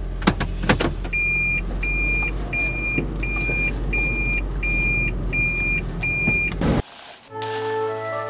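Car engine running steadily, heard from inside the cabin, with a couple of clicks near the start. The car's electronic warning chime then beeps eight times at an even pace, a little over one beep a second. Near the end the car sound cuts off and music with sustained organ-like tones takes over.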